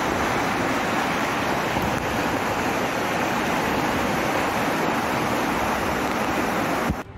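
Steady rushing roar of a fast, muddy flooded river current, cutting off abruptly near the end.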